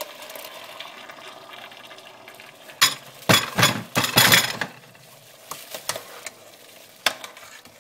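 Blended tomatoes and then water from a glass poured into a steel pot of frying minced meat and vegetables, stirred with a metal spoon. The loudest part is a burst of stirring and splashing about three seconds in, with a few spoon clicks against the pot near the end.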